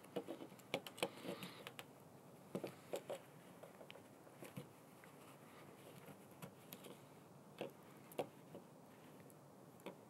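Faint handling sounds of hand-sewing with a Victorinox Huntsman pocket knife's reamer: scattered light clicks and rustles as the knife and cord are worked through a thick wool blanket, with several clicks in the first second.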